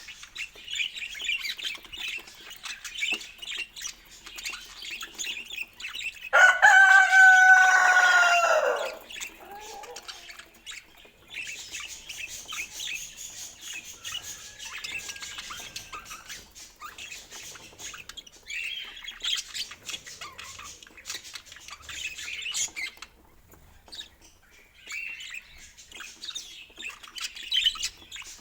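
Pet budgerigars warbling and chirping in a high, continuous chatter. About six seconds in, one much louder, drawn-out call of about two and a half seconds falls in pitch at its end.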